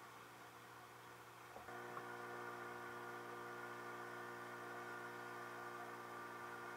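Outboard motor of an inflatable boat running at steady speed under way, a steady droning hum; it gets a little louder about a second and a half in.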